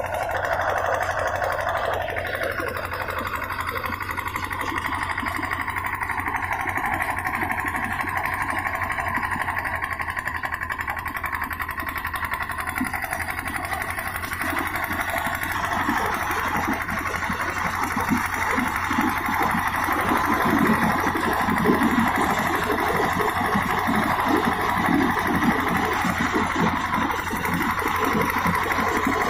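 Groundnut threshing machine running steadily with a constant hum, pods rattling and clattering through it, denser and a little louder in the second half.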